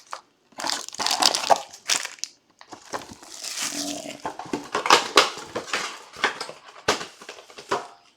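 Crinkling and crunching of trading-card pack wrappers as packs that are stuck together are pulled apart and handled, in uneven bursts with a single sharp knock near the end.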